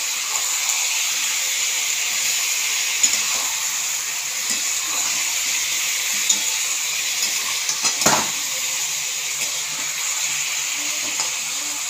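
Chicken pieces sizzling and bubbling in hot oil in a kadhai as the chicken's own water cooks out, a steady hiss. A metal spatula stirs and knocks against the pan a few times, loudest about eight seconds in.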